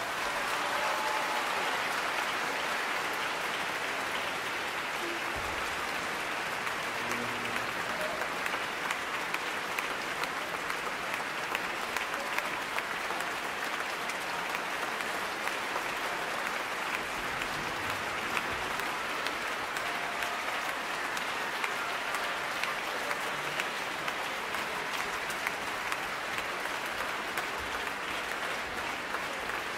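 Concert-hall audience applauding steadily, with orchestra members joining in: an ovation at the end of a piano concerto performance.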